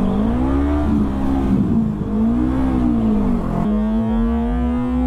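Motorcycle engine revved up and back down twice, then, after an abrupt change near the end, a steady engine note slowly climbing in pitch.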